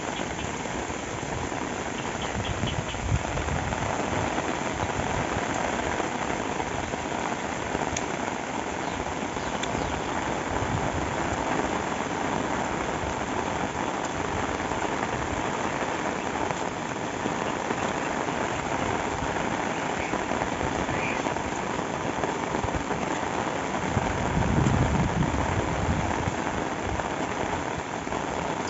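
Steady heavy rain falling and pattering on surfaces. About three-quarters of the way through, a low rumble swells for a couple of seconds.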